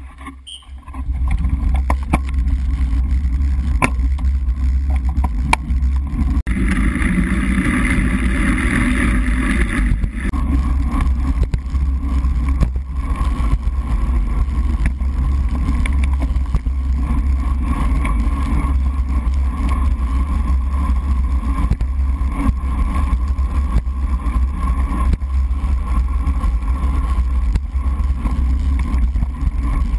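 Wind and road noise on a GoPro HD Hero sealed in its waterproof housing on a road bike riding fast on a wet road: a steady deep rumble with a hiss of tyre spray. The noise jumps up as the bike gets moving about a second in, and grows brighter for a few seconds around six to ten seconds in.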